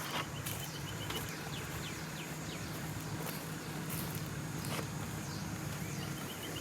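Outdoor ambience: a high, pulsed trill near the start and again near the end, a few short chirps, and scattered clicks over a steady low hum.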